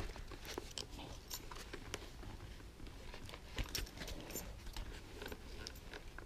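Faint rustling and light scraping of a foam-and-fabric helmet cheek pad being worked into place inside a motorcycle helmet, with scattered small clicks.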